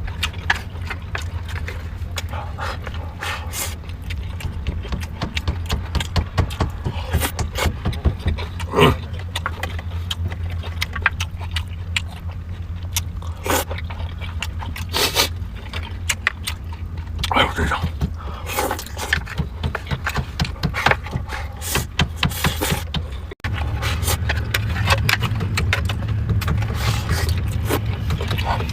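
Eating from an old lunchbox: utensils clicking and scraping against the box, with chewing, over a steady low hum. A brief cut about 23 seconds in, after which the hum is louder.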